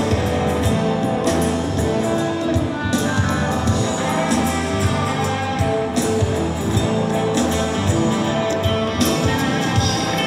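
Rock band playing live: strummed acoustic guitar, drums keeping a steady beat, and a lead vocal singing.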